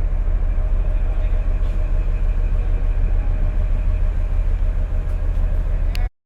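Steady low rumble of a moving vehicle, with a faint steady hum above it, cutting off abruptly near the end.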